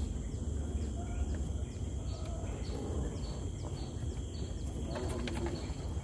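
Outdoor ambience: a steady low rumble with faint, short bird chirps repeating about twice a second, and a few light clicks near the end.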